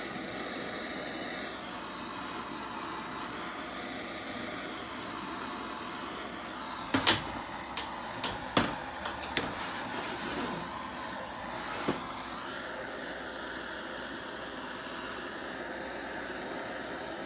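Oxy-acetylene torch flame running steadily, preheating a cast iron exhaust manifold. About seven seconds in come a series of sharp metallic clicks and knocks, a handful over the next five seconds.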